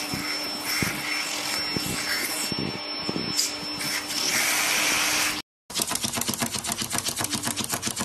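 Vacuum cleaner running with a steady hum and a thin high whine, with a few sharp clicks over it while a cat bites the hose nozzle; it stops abruptly about five seconds in. A fast, even ticking follows.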